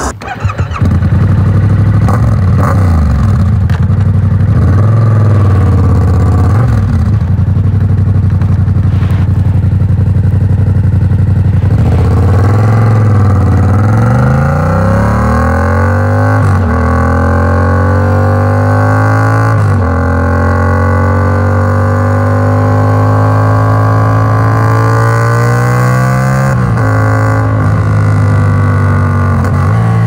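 Yamaha MT-07's 689 cc parallel-twin engine through an Arrow Works exhaust on catless headers with the dB killer fitted, ridden on the road. It runs at low revs for the first dozen seconds, then accelerates with rising pitch, and the pitch drops at three upshifts in the second half.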